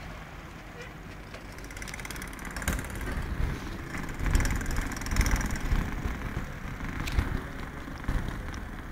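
A motor vehicle running on the street, probably a bus, a low rumble that swells about halfway through, with a couple of brief sharp knocks.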